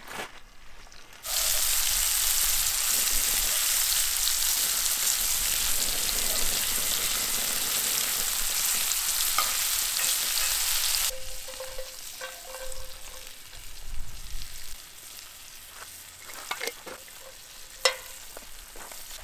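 Breaded pike fillets sizzling hard in hot oil and butter in a cast-iron skillet, starting about a second in. About halfway through, the sizzle drops to a much quieter one, with a few light clicks of metal tongs and one sharp click near the end.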